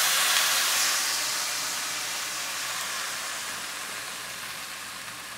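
Tamari sauce sizzling and steaming as it hits hot oil in a frying pan of potstickers: a loud, steady hiss that slowly dies down.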